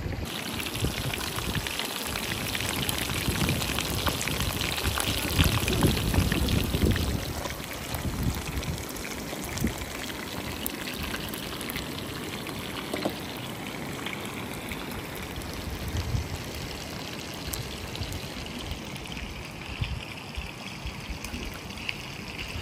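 Fish frying in hot oil: a steady sizzle and crackle, a little louder for the first several seconds.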